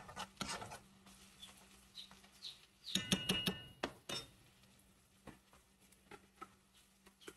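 A metal spoon scraping and stirring onions and garlic in a cast-iron skillet, then a clatter about three seconds in as the spoon is set down, with a brief metallic ring. A few light ticks follow.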